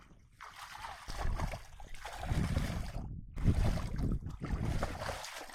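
Shallow muddy water sloshing and splashing as hands and a woven bamboo fish trap are worked through it. The sound comes and goes unevenly, with a short break about three seconds in.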